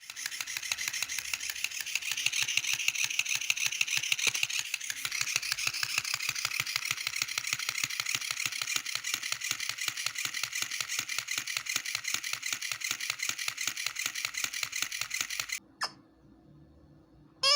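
A noise-making dog toy giving a rapid, even mechanical ticking that runs for about fifteen seconds and then cuts off suddenly.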